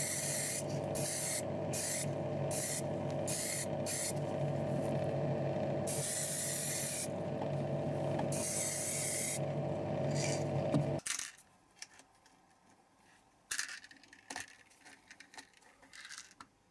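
Paint sprayed onto small model-car parts in short hissing bursts, with two longer passes, over the steady hum of the spray booth's running machinery. About two-thirds of the way through the hum and spraying stop abruptly, leaving faint clicks of small parts being handled in a plastic tub.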